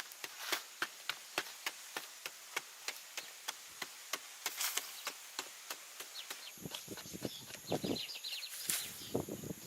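A quick, even series of sharp knocks or taps, about three a second. Near the end they give way to rougher scraping sounds and a steady high buzz.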